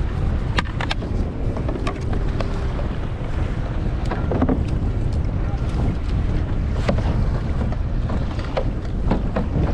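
Wind buffeting the microphone in a steady low rumble, with a few scattered light clicks and knocks.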